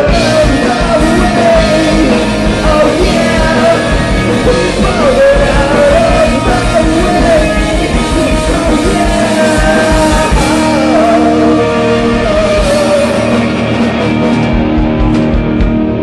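Live rock band playing loud: a man sings lead over electric guitar, bass guitar and a drum kit. The vocal line drops out near the end while the band plays on.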